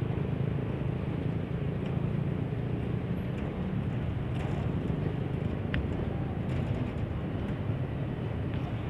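Diesel locomotive's engine running with a steady low drone as it rolls slowly over the yard tracks, with a few faint clicks.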